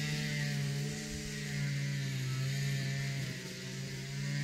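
Strimmers (string trimmers) running steadily, their motor pitch wavering slightly up and down.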